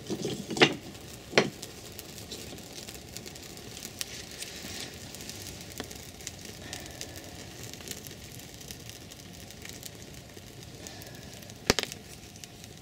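Newly lit kindling fire crackling and hissing in a metal fire bowl, with dense small ticks and pops. A few louder sharp cracks stand out, about half a second in, at about a second and a half, and again near the end, as thin split sticks are laid on.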